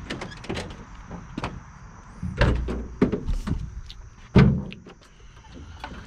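Gear being handled in the back of a work vehicle: a run of knocks and clatters, with heavier thumps about two and a half and four and a half seconds in, the second the loudest.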